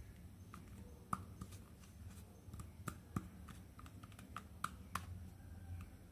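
Small plastic toy pieces handled and set down, giving faint, irregular light clicks and taps, about a dozen in all, over a steady low hum.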